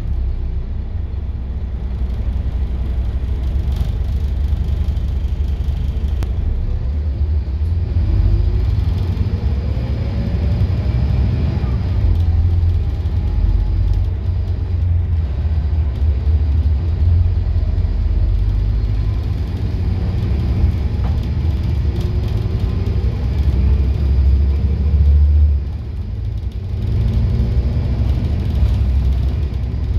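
Scania N230UD double-decker bus heard from the upper deck while moving: the steady low rumble of its five-cylinder diesel and road noise, with a whine that rises in pitch as the bus picks up speed, twice. The noise dips briefly near the end, then comes back.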